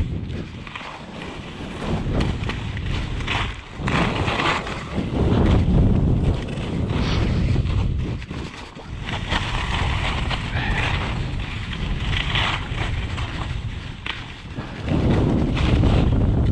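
Wind blowing on the microphone of a camera worn by a downhill skier, swelling and dropping every few seconds. Skis hiss and scrape over the snow in bursts through the turns.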